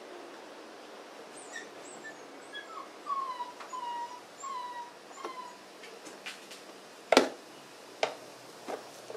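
A dog whining: a series of short, falling whimpers in the first half. Then a few sharp clicks and knocks follow, the loudest about seven seconds in.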